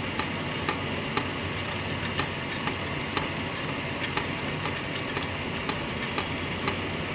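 Stand mixer running steadily, its wire whisk beating buttercream in a steel bowl, with a light tick repeating evenly about twice a second.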